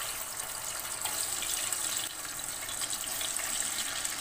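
Raw potato fries deep-frying in hot oil just after going in, a steady vigorous sizzle with many small crackles.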